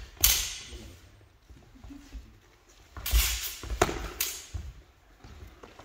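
Spadroon blades clashing in sparring, mixed with thumps of footwork on a sports-hall floor: one sharp clash just after the start, then a quick flurry of clashes and stamps about three to four and a half seconds in.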